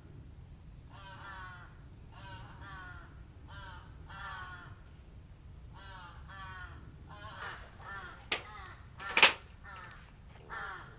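Crows cawing: a long run of short calls, one after another. One call about nine seconds in is much louder and closer than the rest, with a sharp click just before it.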